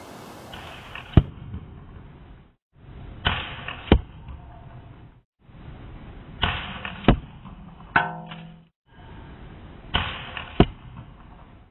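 Shots from a 90 lb mini crossbow pistol into a boot in front of a foam block target, heard four times in quick succession: each time a short rush of noise and then a sharp crack about half a second later as the bolt hits. About two-thirds of the way through there is also a brief ringing twang.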